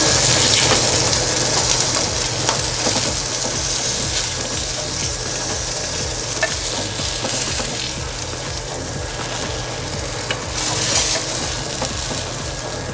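Panko-breaded crappie fillets sizzling in shallow oil in a cast iron grill pan: a steady hiss, loudest at first and easing a little, swelling briefly near the end. A few light clicks come through the sizzle.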